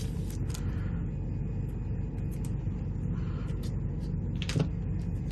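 A steady low rumble with a few faint clicks, about half a second in and again near the end.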